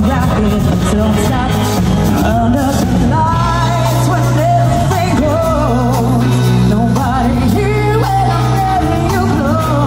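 Live amplified band music: a woman sings lead over electric guitars, keyboard and drums, with sustained low bass notes underneath.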